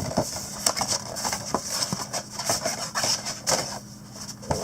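A cardboard trading-card box being opened by hand: irregular rubbing and scraping of the packaging, with scattered clicks.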